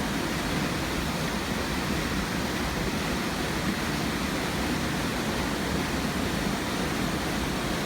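Waterfall rushing, a steady, even noise of falling water that does not change.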